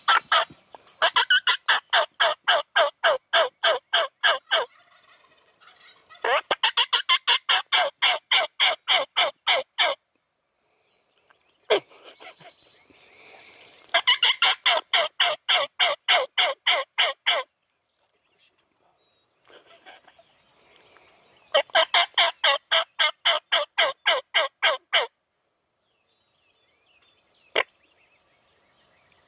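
Turkey yelps in four long runs of fast, evenly spaced notes, about four a second, with short pauses between the runs.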